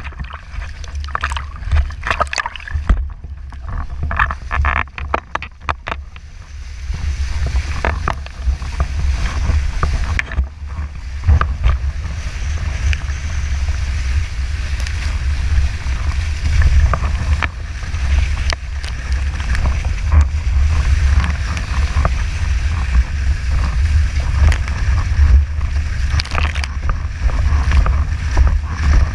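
Windsurf board and sail in strong wind: water splashing and sloshing around the board at first during a waterstart, then a steady rush of wind and water from about seven seconds in as the board sails across the chop, with wind buffeting the microphone as a low rumble and the hull now and then slapping on the water.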